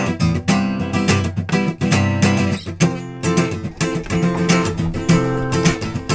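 Steel-string acoustic guitar strummed in a steady rhythm, with a change of chord about three seconds in.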